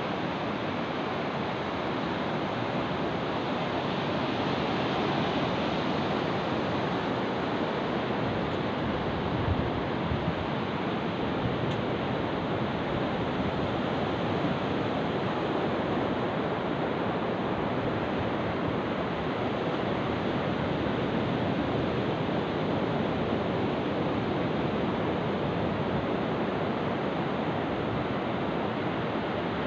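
Surf breaking and washing up a sandy beach: a steady, even rush of noise with no distinct breaks between waves.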